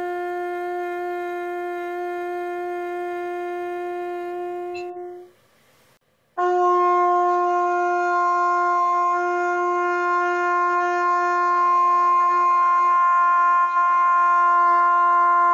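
Two long held trumpet notes on the same pitch, written G (sounding concert F): the first is sustained about five seconds and then fades away. After a second's gap a louder one is held for nearly ten seconds, heard through the video call.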